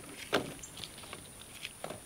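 Wooden sticks clicking and knocking as they are set and shifted over a bed of campfire coals: a sharp knock about a third of a second in, a second one near the end, and light clicks between.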